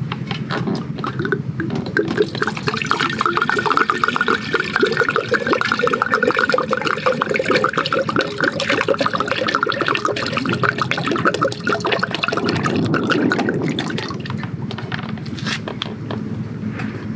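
Water poured from a stainless steel jug into a small camp cooking pot to be boiled, a steady splashing fill that runs from about a second and a half in until about thirteen seconds, then eases off.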